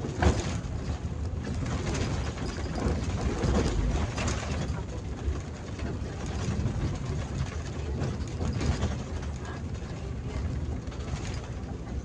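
Bus running on the road, heard from the driver's cab: a steady low engine and road noise, with scattered clicks and rattles from the cab.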